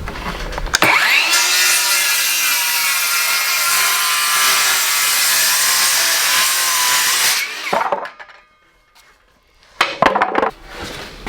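A power saw cutting through framing lumber: the motor whines steadily under load for about seven seconds, then stops. A few wooden knocks follow near the end.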